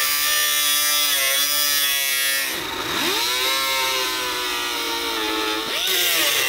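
Angle grinder cutting the sheet steel of an old motorcycle fuel tank, a steady whine. Its pitch sags about two and a half seconds in and again near the end as the disc bites into the metal, then picks back up.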